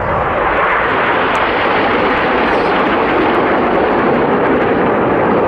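Formation of BAE Hawk T1 jet trainers passing at close range, their Adour turbofans making a loud, continuous jet noise that swells at the start and drops lower in pitch toward the end as the jets go by.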